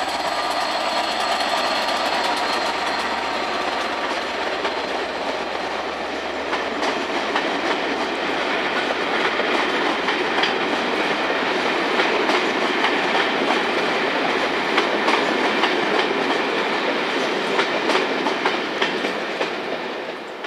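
Train running on the track, with steady noise from the train and, from about a quarter of the way in, rapid irregular clicking of wheels over track joints. It fades slightly near the end.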